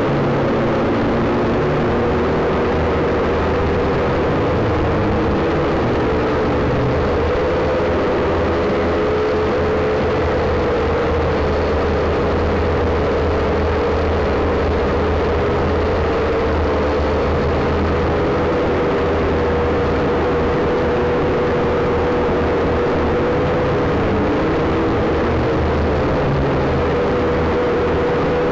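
WLtoys V222 quadcopter's small electric motors and propellers whining steadily, heard from on board the quad, the pitch wavering a little as the throttle changes.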